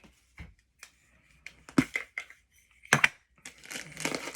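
Plastic packaging of a Funko Soda figure being handled and opened: scattered sharp clicks and knocks, then plastic crinkling near the end.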